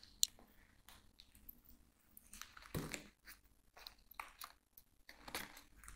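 Faint, scattered rustles and light clicks of a plastic plant pot and its leaves being handled, with a few louder crackles along the way.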